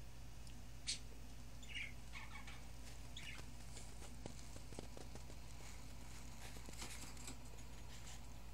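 A few faint, short high chirps in the first few seconds, one falling in pitch, with scattered light clicks over a steady low hum.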